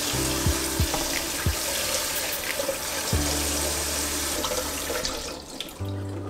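Tap water spraying from a kitchen faucet onto a gutted mackerel and into a glass bowl in a stainless steel sink, a steady rush and splash that fades out near the end.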